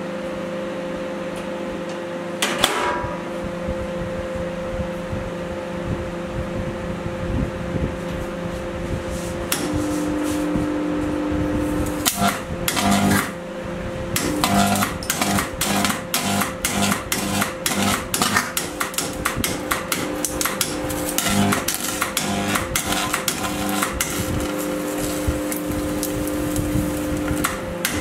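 Overclocked microwave oven, pushed to about four times its rated power, running with a steady hum. A single sharp crack comes about two and a half seconds in, and from about halfway on there is rapid, irregular crackling and snapping as the circuit board inside arcs and burns.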